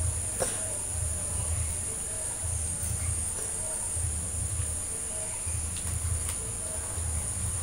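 Steady high-pitched insect chirring with a low uneven rumble underneath, and a few faint clicks, one about half a second in and another near six seconds.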